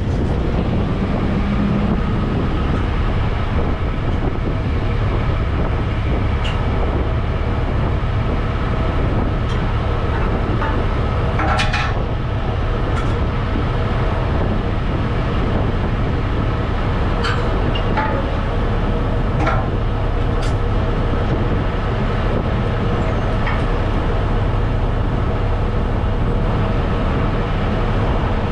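Semi-truck diesel engine idling steadily, a low even rumble, with a few short clicks and knocks about twelve seconds in and again a little later.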